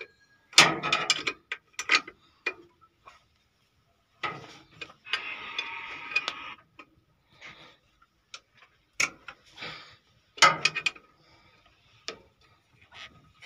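Hand work on a diesel engine's fuel injection pump: scattered metallic clicks and clinks of tools and fittings in short clusters, with a rustling scrape for a couple of seconds near the middle.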